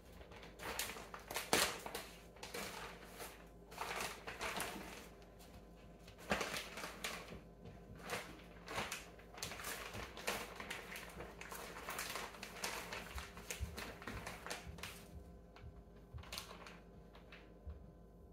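Plastic packaging rustling and crinkling in irregular bursts as wiener sausages are handled and taken out, thinning to a few light handling sounds near the end as they are laid on the cutting board.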